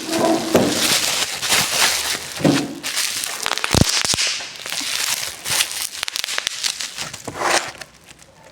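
Plastic packaging around a new book crinkling and crackling as it is handled, with sharp pops and clicks. It quietens near the end.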